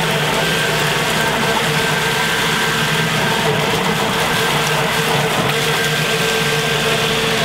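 Liberty Omnivore 2 HP submersible grinder pump running steadily at full flow with little lift, a constant motor hum over the rush of its discharge water pouring into a strainer, as its cutter chews up a leather glove.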